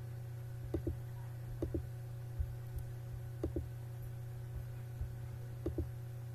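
Steady low electrical hum with about four soft double clicks spaced one to two seconds apart, the press and release of a mouse button as installer pages are clicked through.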